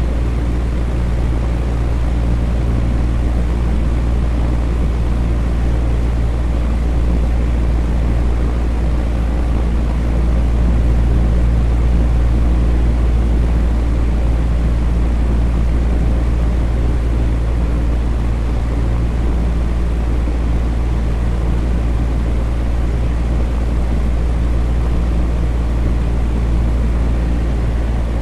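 Electric fan running steadily: an even whooshing of moving air over a low motor hum.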